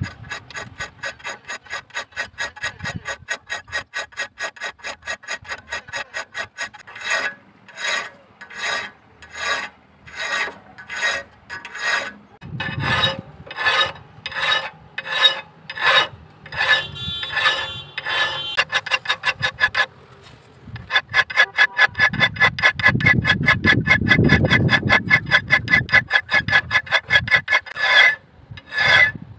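A hand file rasping across the edge of a leaf-spring steel knife blank held in a vise, in a long run of back-and-forth strokes. The strokes come quickly at first, slow to about two a second in the middle, and run fast and almost unbroken in the last few seconds.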